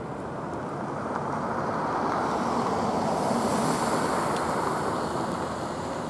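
Rushing noise of a passing vehicle, swelling slowly to its loudest about three and a half seconds in and then fading again.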